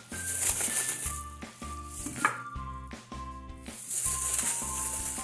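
Background music with a steady low beat and held melody notes, over the rustle and squish of a plastic-gloved hand handling pieces of cooked pork skin and trotters in a steel pot, loudest in the first second and again near the end.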